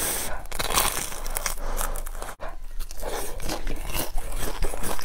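Close-miked biting and chewing of crusty, crumb-coated fried bread buns: a dense run of crisp crunching and crackling.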